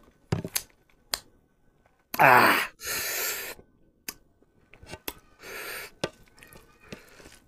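Close-up eating sounds from a person eating rice and fish by hand: a few small clicks, a loud short vocal sound falling in pitch about two seconds in, then a hissing breath right after it and another near six seconds.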